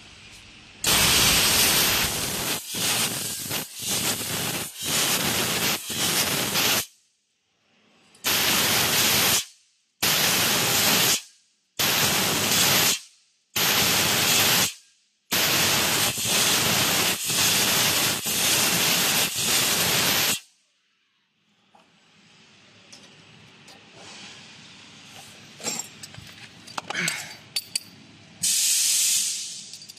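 Fiber laser tube cutter cutting square steel tube: the assist gas jet at the cutting head hisses loudly in long runs that stop and start several times as the head moves between cuts. Afterwards it goes much quieter, with a few light metallic clicks and one more short burst of hiss near the end.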